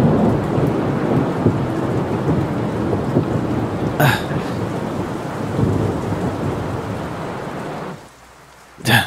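Heavy rain pouring with thunder, a steady wash of noise over a low rumble, that fades out about eight seconds in. A brief sharp sound stands out about four seconds in.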